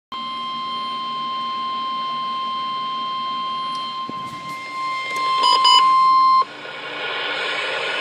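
NOAA Weather Radio's 1050 Hz warning alert tone sounding through a weather radio's speaker: one steady tone, the signal that a warning-level alert is about to be read. It grows louder and breaks into a few short beeps about five and a half seconds in, then cuts off suddenly, leaving a hiss.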